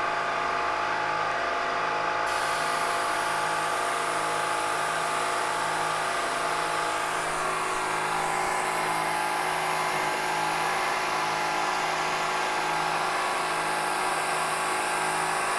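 Milling machine spindle turning a 1/8-inch end mill at about 3,200 RPM, cutting a shallow slot with a steady whine. About two seconds in, a higher hiss sets in and holds as the cut goes on.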